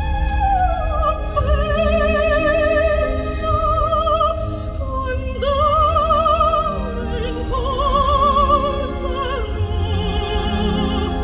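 Operatic singing: a voice holding long notes with wide vibrato, about five held notes gliding from one pitch to the next, with classical backing. A steady low rumble runs underneath.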